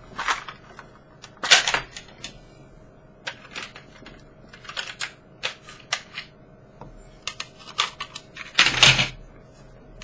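Scattered plastic clicks and knocks of hands working at the underside of a Lenovo G780 laptop, with two louder knocks, one about a second and a half in and one near the end.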